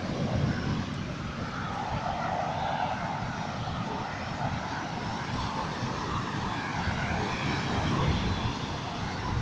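Surf breaking and washing up the beach, with wind buffeting the microphone as an uneven low rumble.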